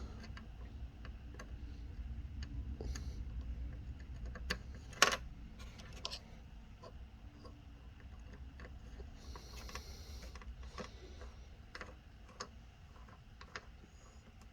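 Scattered small clicks and light knocks of a screwdriver and hands working on the digital video recorder's housing to free its cooling fan, with one sharp click about five seconds in, over a low steady hum.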